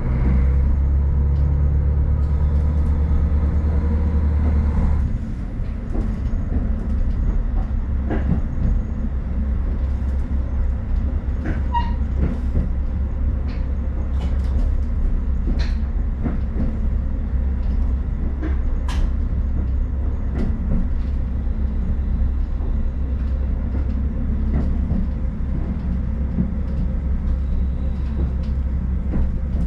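KiHa 40 diesel railcar running along the track. Its engine drones steadily under power for the first five seconds, then eases off into a steady rumble of running on rails with scattered clicks.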